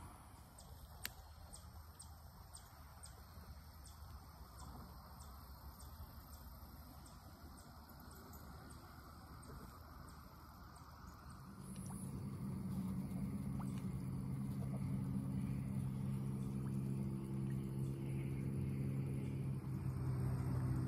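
Quiet outdoor ambience with faint light ticks, then about halfway through a steady low engine hum comes in and holds.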